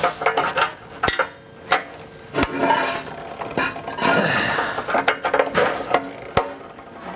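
Irregular clicks, clinks and knocks of a hand tool and plastic and metal parts as a stubborn clip is worked loose from a car's front end, with three sharper knocks standing out.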